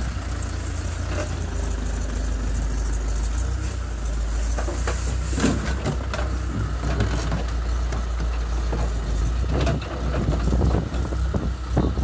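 Backhoe loader's diesel engine running steadily under load while its hydraulic digging arm works. Scattered knocks and scraping of concrete and rubble against the steel bucket come mostly about halfway through and near the end.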